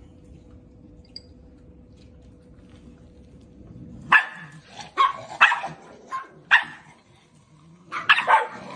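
Dog barking: a low rumble for the first few seconds, then a series of sharp barks from about four seconds in, with a quick flurry of barks near the end.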